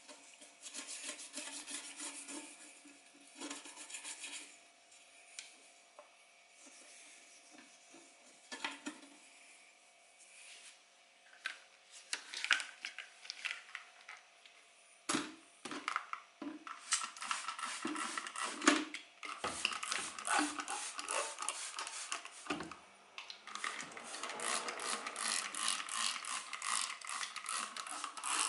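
Rapid scraping and clicking of small hard objects being handled, in bursts, with several sharp knocks about halfway through.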